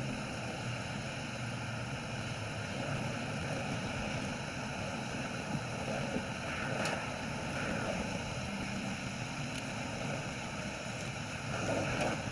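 Steady street background noise of traffic passing on a busy road, a continuous rumbling hiss with no single event standing out.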